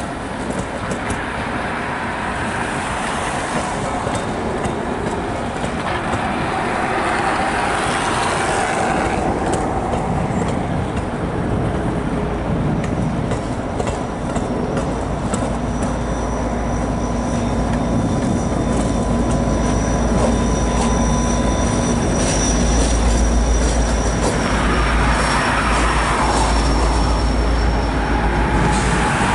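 Metra bilevel coaches rolling past with wheel noise, then two EMD F40PHM-2 diesel locomotives pushing at the rear, their deep engine rumble building through the second half as they pass. A thin high wheel squeal comes in partway through.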